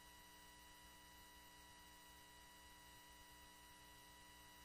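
Near silence: a faint steady electrical hum with a few thin high steady tones, and no rocket sound.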